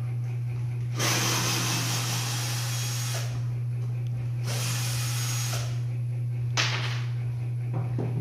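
Cordless drill running against a plywood panel in three bursts: a long one of about two seconds, a second of about a second, and a short one. A steady low hum runs underneath.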